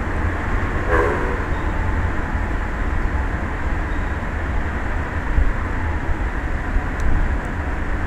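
Wind buffeting an outdoor microphone above the open sea: a constant rushing noise with a heavy, fluttering low rumble. About a second in, a short pitched sound rises briefly over it.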